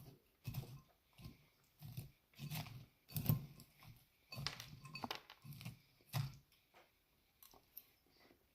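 A person chewing salad close to the microphone: irregular crunchy bites and mouth noises, one or two a second, thinning out after about six and a half seconds.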